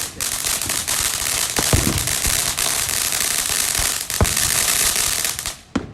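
Fireworks crackling: a dense, rapid rattle of tiny pops with a couple of louder bangs, cutting off suddenly near the end.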